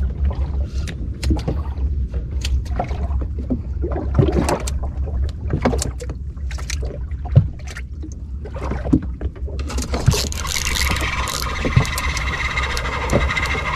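Small boat rocking at sea: a steady low rumble of wind and water with scattered knocks and taps against the sampan's hull. About ten seconds in, a steady hiss comes in and runs on.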